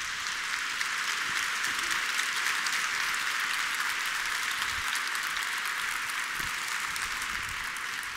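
Large theatre audience applauding, a dense steady clapping that swells at the start and slowly tapers off toward the end.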